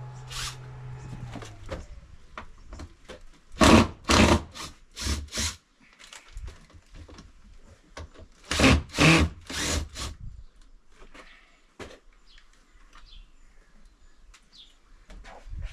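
Scraping and rubbing as the remains of a broken old hinge are worked off a Keter plastic storage box, in two runs of short scraping strokes: about four seconds in and again around nine seconds.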